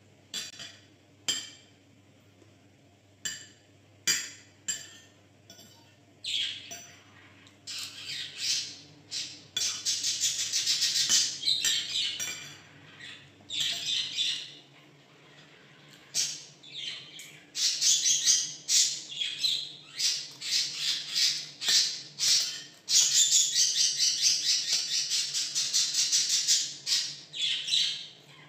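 Caged pet bird chirping and squawking: a few sharp single calls at first, then from about eight seconds in, loud, rapid, almost unbroken runs of high chirps.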